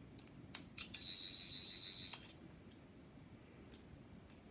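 Thirteenth Doctor sonic screwdriver toy: a couple of button clicks, then its electronic sonic sound effect plays from the toy's small speaker for about a second as a high, thin whir.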